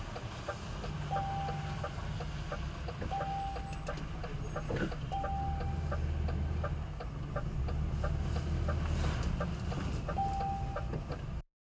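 A vehicle's turn-signal indicator ticks steadily, about twice a second, over a low engine hum at near-walking speed. A short high beep recurs every couple of seconds. The sound cuts off suddenly near the end.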